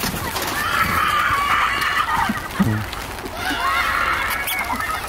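Children shrieking at play, two long high-pitched screams a little over a second apart.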